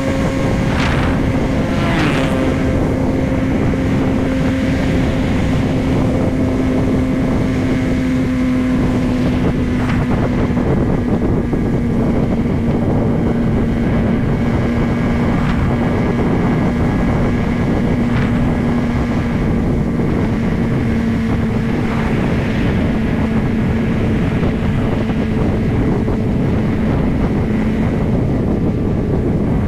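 Motorcycle engine running steadily at highway cruising speed, its tone slowly sinking a little as the revs ease off, under heavy wind rush on the microphone.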